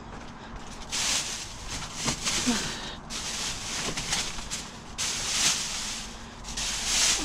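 Plastic trash bags crinkling and rustling in repeated bursts as they are pushed around with a reach grabber.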